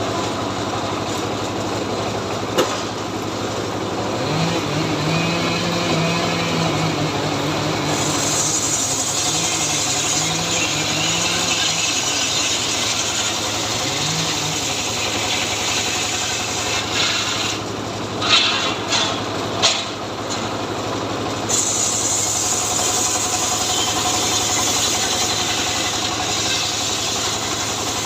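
Chainsaw engine running steadily, its sound turning brighter about eight seconds in, dropping back with a few sharp knocks around eighteen to twenty seconds, then brightening again.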